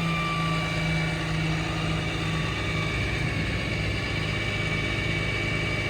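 Ram 5500's Cummins 6.7 diesel running steadily while the IMT crane is worked hydraulically, with a thin steady high whine from the crane's hydraulics over the engine hum.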